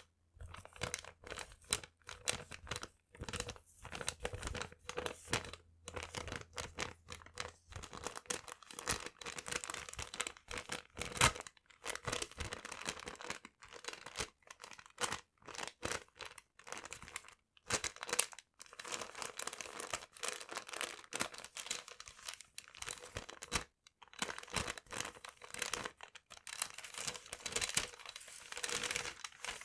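Paper being crinkled and handled: a dense, irregular run of crackles and rustles, with brief pauses.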